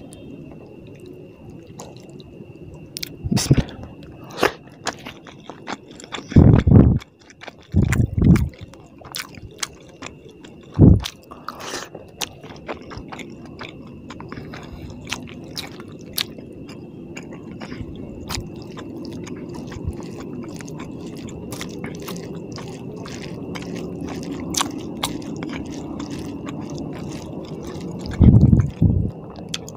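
Close-miked eating of tilapia fish curry with rice by hand: fingers squishing and tearing the soft curried fish and mouth chewing, with many small wet clicks and a few loud low thumps. A faint steady high whine runs underneath.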